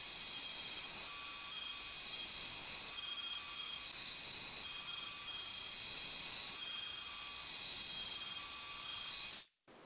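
Disc sander running steadily while the end of a steel bandsaw blade is ground against its abrasive disc to form a scarf for a silver-soldered joint: an even high hiss with faint whistling tones, stopping abruptly near the end.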